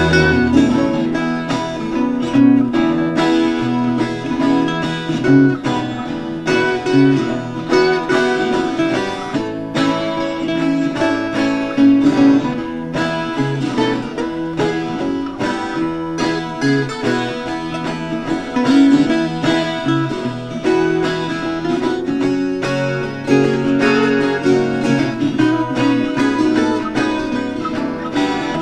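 Bluegrass-style instrumental music with picked acoustic guitar and banjo, a break between the sung verses of a song.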